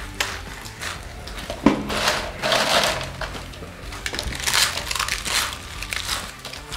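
Doritos tortilla chips crunching as handfuls are pressed into the mouth and chewed fast, in quick irregular bursts of crackling crunches.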